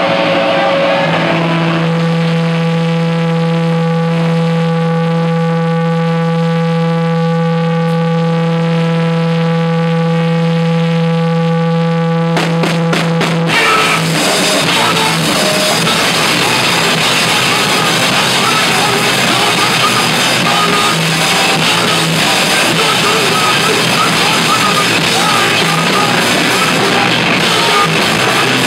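Live punk band through amplifiers: a single held guitar note rings steadily for about thirteen seconds, then after a few sharp hits the whole band comes in loud with distorted guitars and drums.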